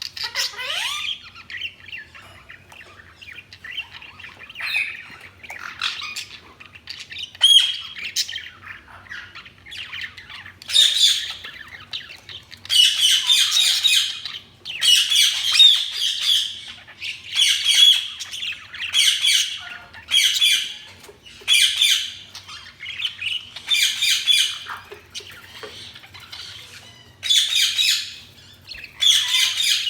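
Budgies (budgerigars) chattering and chirping, with bouts of loud scratchy squawking calls roughly once a second in the second half.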